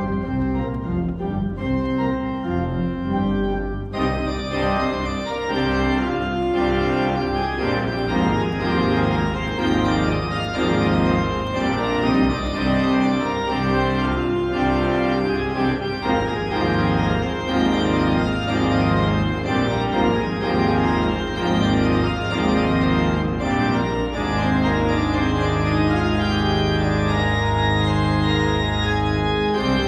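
Church organ playing sustained, moving chords. About four seconds in the sound turns brighter and fuller, and in the last few seconds a deep pedal note is held underneath.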